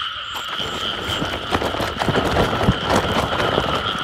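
Dense chorus of frogs calling in a flooded field, a steady unbroken din, over close irregular rustling and knocks from movement through the water and vegetation.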